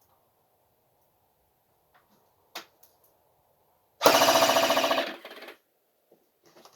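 An electric airsoft M249 (Cybergun A&K "Middleweight") firing one full-auto burst of about a second, a fast even rattle of the gearbox cycling, which fades out about half a second later. A single sharp click comes a little earlier.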